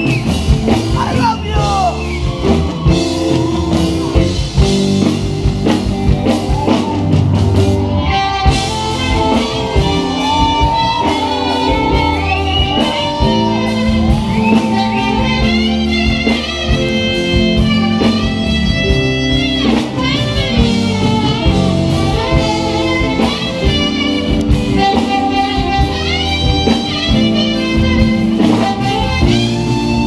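Live band playing a song with drums, electric bass, electric guitar and keyboard, a saxophone taking a long, gliding melodic solo over the band from about a third of the way in.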